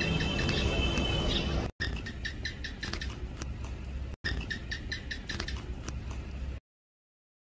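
House gecko (Hemidactylus) calling: a rapid series of short, sharp chirps, over a low rumble of background noise in the first couple of seconds. The sound drops out briefly twice and stops about a second before the end.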